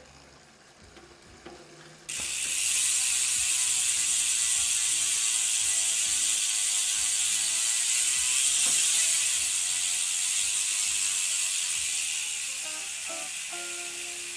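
Speedone Torpedo 8-pawl rear freehub buzzing as the wheel freewheels: a loud, dense ratchet buzz that starts suddenly about two seconds in, holds steady, and eases a little near the end.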